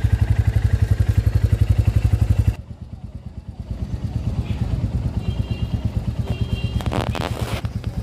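Royal Enfield motorcycle's single-cylinder engine idling with an even, rapid thump, close and loud at first, then quieter from a cut about two and a half seconds in. A brief rustling noise comes near the end.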